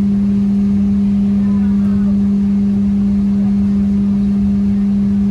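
Steady Boeing 777-300ER cabin noise: a constant low rumble with a strong unchanging hum.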